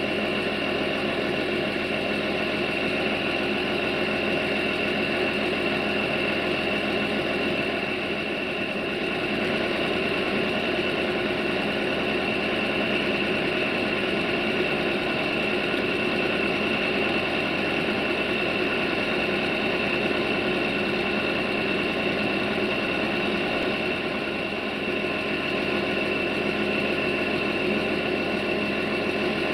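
A diesel engine idling steadily with a constant high whine over it; the sound holds level and does not build.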